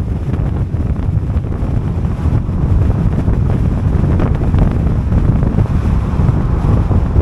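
Wind buffeting the microphone: a loud, low rumble that grows over the first few seconds and then holds steady.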